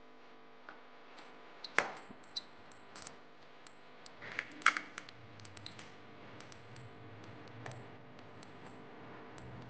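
Sharp plastic clicks and knocks from handling a small plastic blender jar and fitting its lid, a handful spread over several seconds, the loudest about two seconds in and just before five seconds in. No blender motor is heard.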